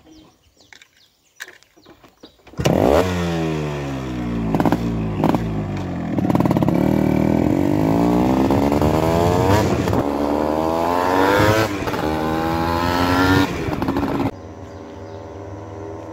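Two-stroke Yamaha RX motorcycles revving and riding, starting abruptly a couple of seconds in. Several engines rise and fall in pitch across each other. Near the end it cuts to a steady, quieter low hum.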